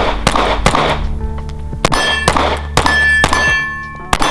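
A string of 9mm pistol shots fired in quick succession. Several of the later shots are followed by the ring of steel targets being hit.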